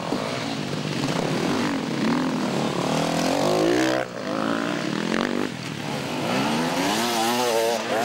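Enduro dirt bike engines revving as several bikes ride the course. The pitch repeatedly climbs and drops with throttle and gear changes, and there is a sudden break in the sound about four seconds in.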